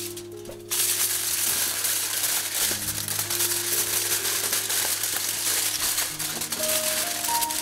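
Aluminium foil crinkling and crackling as hands fold and scrunch it closed around raw beetroots, starting about a second in.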